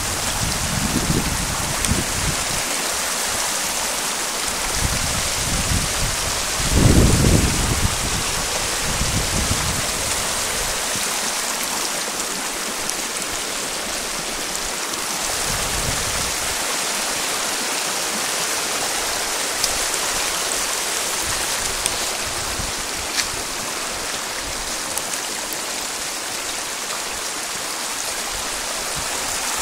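Floodwater rushing down a rocky mountain path like a stream, a steady loud hiss of running water. A few brief low rumbles cut in, the loudest about seven seconds in.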